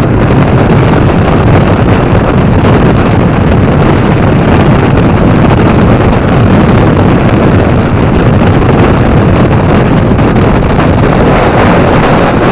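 Loud, steady rushing of wind buffeting the microphone through an open car window at driving speed, mixed with tyre noise from rolling over an open steel-grate bridge deck.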